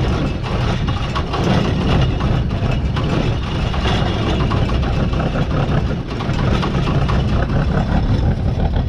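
Gleaner M3 combine's engine running steadily just after a cold start.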